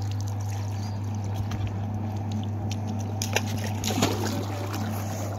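Pool water splashing and sloshing as a person climbs down a steel ladder into a swimming pool, loudest about three to four seconds in. Underneath is a steady low hum from the pool's filter pump running.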